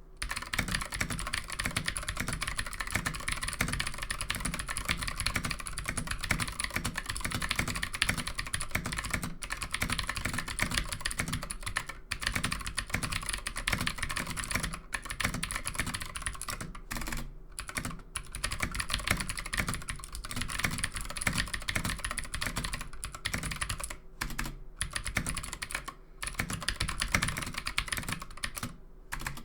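Fast, continuous typing on a modded Ducky Mini mechanical keyboard with clicky Gateron Green switches: a rapid stream of sharp key clicks, broken by short pauses every few seconds.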